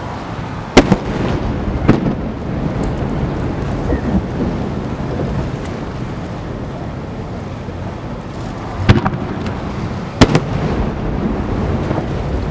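Aerial firework shells bursting: four sharp booms, a pair about a second apart near the start and another pair about three quarters of the way through, each trailing off into a low rumble.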